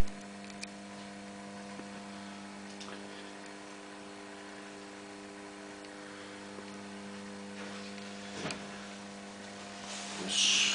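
Steady electrical mains hum from a working AC arc lamp and its variable-transformer supply: a constant buzz with a ladder of overtones. A brief rustle comes near the end.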